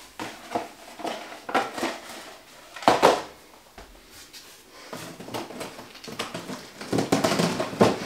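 Small cardboard boxes and model-railway bits being handled and put down: light knocks and clatter, with one louder knock about three seconds in and a stretch of rustling near the end.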